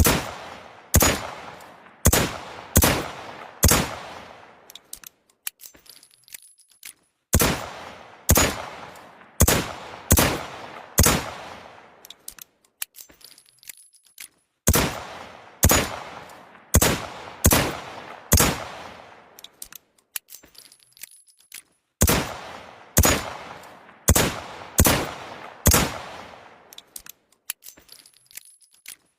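Smith & Wesson Model 642 .38 Special snub-nosed revolver fired in four strings of five shots, about a second apart, each shot ringing out briefly. Faint clicks and clinks fill the pauses of a few seconds between strings.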